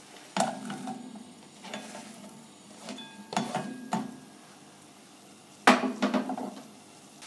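Sliced onions scraped off a cutting board into a saucepan: a series of short scrapes and knocks against the pan, the loudest clatter about six seconds in.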